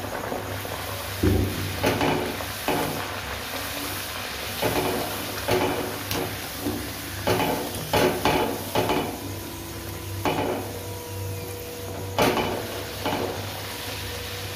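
A luchi deep-frying in hot oil in a metal kadai, sizzling steadily. A wire spiral skimmer knocks and scrapes against the pan a dozen or so times at uneven intervals as it presses the bread into the oil.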